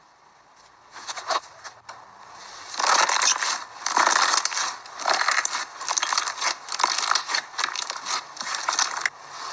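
Slime being squeezed and pressed by hand, giving crunchy crackling in repeated surges about once a second after a quiet start with a few faint clicks.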